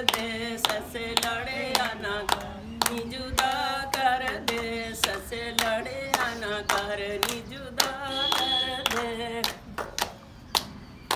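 Women singing a Punjabi dholki geet (folk wedding song) to steady rhythmic hand clapping. Near the end the singing stops while the clapping goes on.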